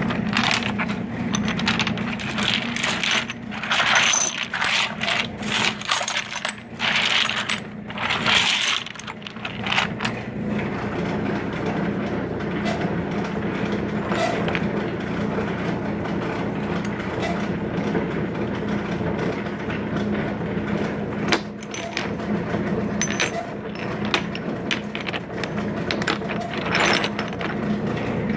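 Pieces of petrified wood and river rock clacking and scraping against each other as a hand rummages through a cardboard box of them, busiest in the first third, over a steady low hum.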